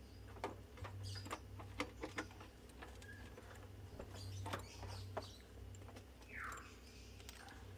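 Faint scattered clicks and light taps of tools and bolts being handled against a plastic battery box, with a short rising chirp about six and a half seconds in.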